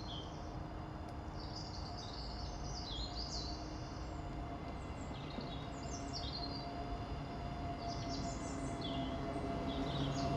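Songbirds singing, short quick chirping phrases coming in bursts every second or two, over a steady outdoor background rumble with a faint steady hum.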